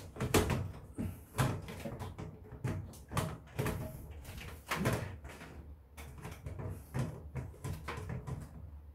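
Irregular plastic clicks, knocks and creaks from a square ceiling sensor light fixture being twisted and pulled loose from its ceiling mount by hand.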